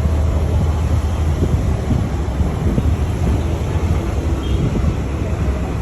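Steady low rumble of a moving motor vehicle, engine and road noise heard from on board.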